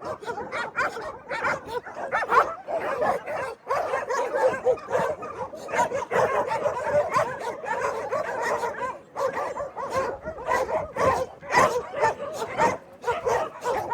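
A pack of dogs barking and yipping together, many voices overlapping in a continuous chorus of short, rising and falling calls.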